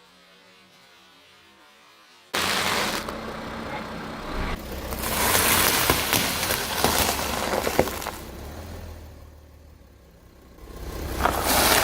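A car's tyres rolling over and crushing objects, with crunching and sharp cracking snaps. It starts suddenly about two seconds in and swells and fades twice.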